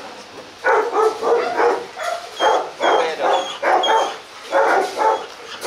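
A dog barking loudly and repeatedly, about two barks a second.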